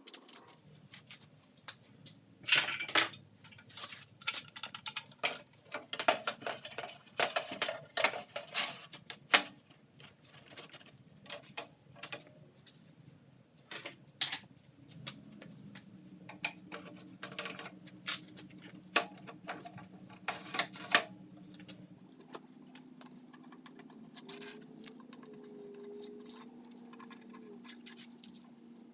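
Irregular metallic clinks, clicks and knocks of bolts, nuts and hand tools being handled and tightened while a table saw's parts are fitted to its stand.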